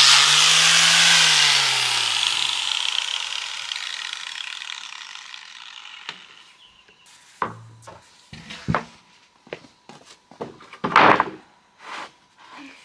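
A power saw winding down after a cut in wood, its hum falling in pitch and fading away over several seconds. Then a scatter of separate knocks and clatters, the loudest about eleven seconds in.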